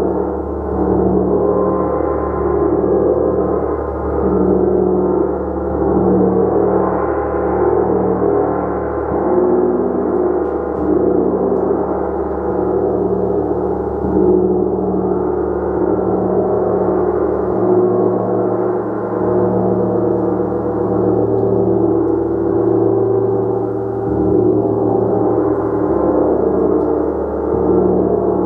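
Gong played continuously: a dense, sustained wash of overlapping tones that swells and eases about every two seconds.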